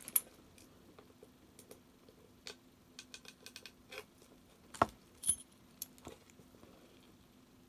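Small clicks, taps and scrapes of a metal trading-card mini tin being handled while fingers pick at its tough plastic wrapping, with sharper clicks at the start and about five seconds in.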